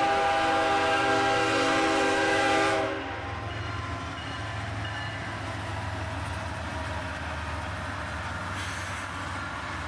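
Diesel locomotive air horn blowing a chord of several steady tones, cutting off about three seconds in. After that comes the low, steady rumble of the passing train.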